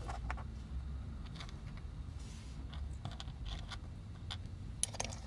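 Light scattered clicks and taps of small plastic and die-cast toy parts being handled and set down, a few a second with a small cluster near the end, over a faint low hum.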